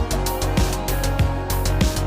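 Background music with a steady drum beat, bass and plucked, guitar-like melody notes.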